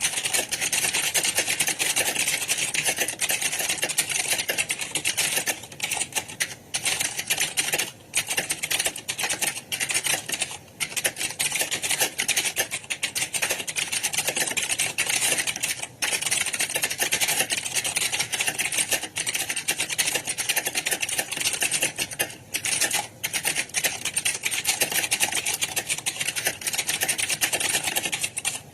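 Computer keyboards being typed on fast in a typing exam hall, a dense continuous clatter of keystrokes with a few brief lulls.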